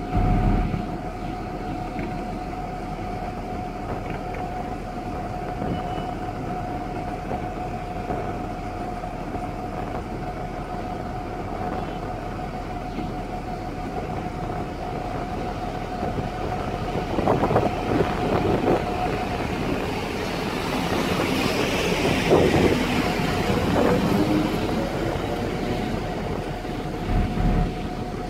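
Soviet-built M62 diesel locomotive idling at a standstill with a steady whine from its two-stroke V12 diesel. About halfway through, an electric locomotive's wheel and rail noise builds up as it draws nearer, then eases off.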